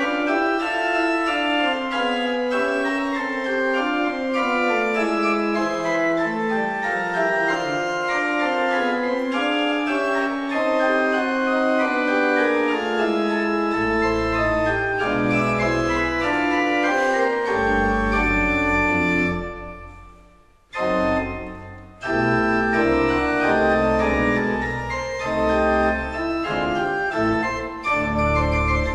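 Organ playing a many-voiced passage with notes moving in several lines at once, deep pedal bass notes entering about halfway through. About two-thirds of the way in the sound dies away, a short chord sounds and fades, and the playing resumes.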